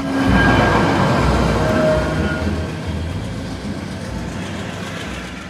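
SNCF regional TER train moving along a station platform, a steady rushing rumble with faint tones on top that is loudest about a second in and fades away gradually.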